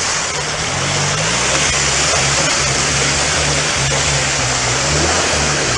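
Daihatsu Terios crawling through deep wet mud: tyres churning and splashing mud in a loud, steady rushing noise, over a low engine drone that shifts in pitch.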